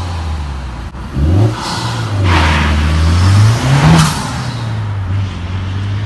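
Car engine running with a low steady note, revved up briefly about a second in and again near four seconds.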